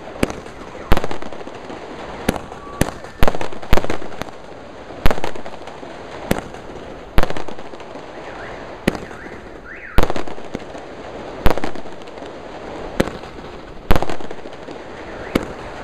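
Fireworks bursting in the sky: a string of sharp bangs at uneven gaps of about a second, each trailing off in a short echo.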